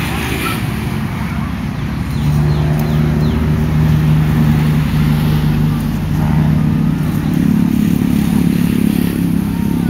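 A motor vehicle engine running steadily, getting louder about two seconds in and then holding an even drone.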